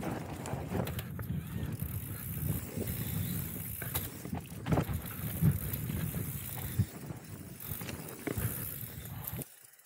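Downhill mountain bike ridden fast over a dry dirt trail: tyres scrabbling on the dirt and the bike rattling, with frequent knocks over bumps and wind rushing over the microphone. It cuts off suddenly near the end.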